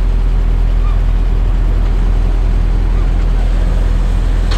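Off-road vehicle engines running steadily at low revs, with a low rumble throughout: a side-by-side UTV close by and a lifted 4x4 crawling over a sand dune. A short rattle of clicks comes right at the end.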